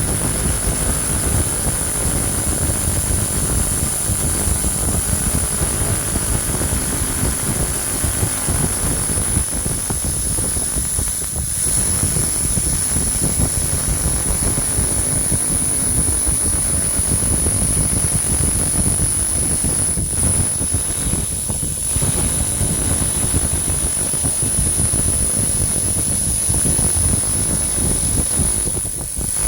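300-watt pulsed laser cleaner blasting rust off a bell: a steady high-pitched whine over a steady rushing noise, dipping briefly just before the end.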